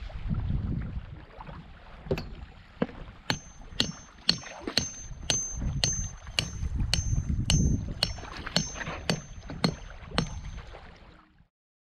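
A ratchet tie-down strap being cranked tight on the camp gear: sharp metallic clicks with a brief ring, about two a second, starting about two seconds in and stopping shortly before the end. Low wind rumble on the microphone underneath.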